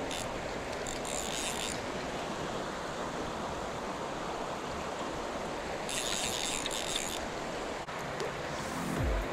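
Steady rush of flowing creek water, with two brief high-pitched rattles. Music with low bass notes comes in near the end.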